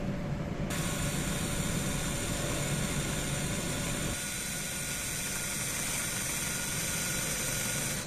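Electric drill running, its twist bit drilling into the brass splined stem of a tap cartridge: a steady motor whine with a harsh hiss from the bit cutting metal. It sets in under a second in and stops abruptly at the end.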